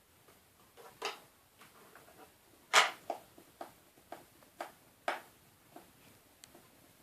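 Small sharp clicks and taps of a precision screwdriver and tiny screws against the iPhone 5's metal internal parts while the screws are put in: about a dozen irregular clicks, the loudest about three seconds in.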